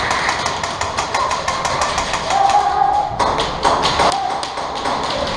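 Airsoft guns firing: a rapid, irregular stream of sharp clicking shots, several a second.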